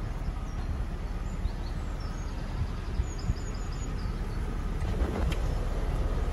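Low rumble of wind buffeting the microphone, with a small bird chirping faintly in short calls through the first half and a single sharp knock about five seconds in.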